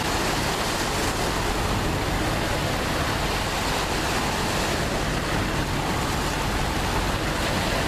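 Steady low drone of boat engines under a constant rush of water and wind noise.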